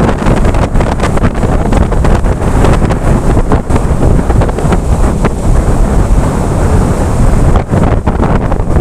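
Strong storm wind over a rough sea, buffeting the phone's microphone in a loud, gusting rush with no let-up. It is typical of typhoon winds.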